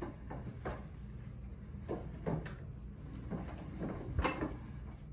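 Irregular short knocks and bumps from sectional couch pieces being lifted and shifted on a tile floor, the loudest a little after four seconds in.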